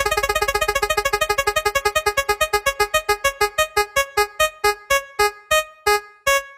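Electronic keyboard note repeated in a quick run that slows steadily, from about ten notes a second to about two near the end, as a decelerating spinner sound effect.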